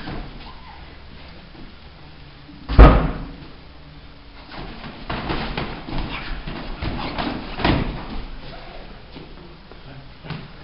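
Taekwondo sparring: one loud thud of a strike landing about three seconds in, then a run of smaller thumps of punches, kicks and footwork on foam mats from about four and a half to eight seconds.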